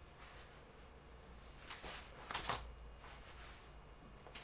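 Breathing of a person doing crunches: a few short, hissy breaths close together about two seconds in, over a faint low hum.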